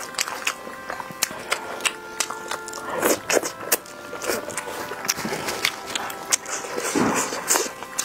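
Close-up eating sounds of spicy beef noodles: wet chewing, lip smacks and a few slurps, with many small sharp clicks. Faint background music with held notes runs underneath.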